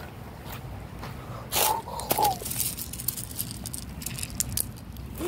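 Footsteps crunching on loose gravel, a string of short crisp scrapes and crunches. About one and a half seconds in come two louder short sounds with a brief pitched edge.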